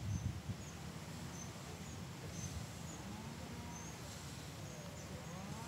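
Faint background ambience with a short, high chirp repeating about twice a second, and a faint tone gliding up and down in the second half.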